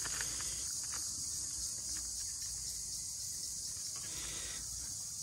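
Insects chirring steadily in a continuous high-pitched drone, with faint rustling underneath.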